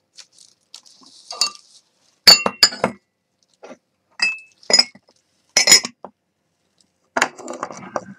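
Ceramic mugs and a bowl clinking together as they are stacked. There are several sharp clinks with a brief ring, then a rougher scraping rattle near the end.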